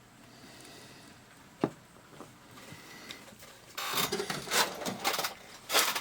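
A single sharp click, then, about four seconds in, a run of rustling and clattering as small tools are handled on a workbench.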